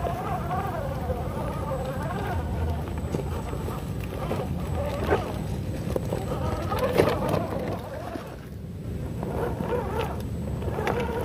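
Electric motor and gear drivetrain of an RGT EX86100 V2 RC crawler whining, the pitch wavering up and down with the throttle. It eases off briefly about eight and a half seconds in. Two sharp knocks come about five and seven seconds in as it works over the rocks.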